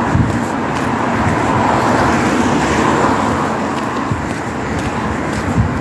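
Road traffic: a car passing on the street, its tyre and engine noise swelling to a peak about two to three seconds in, then fading.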